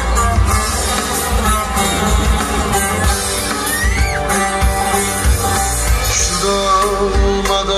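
Folk dance music with a plucked string instrument and a steady low drum beat, possibly with a voice singing.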